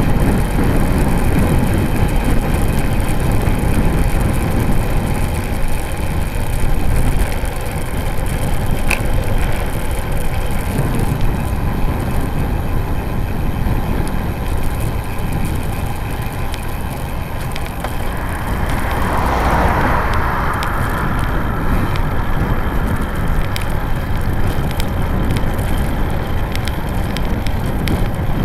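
Steady wind rumble on the microphone of a bike-mounted camera, with road bike tyres rolling on asphalt. A brief rushing swell comes about two-thirds of the way through.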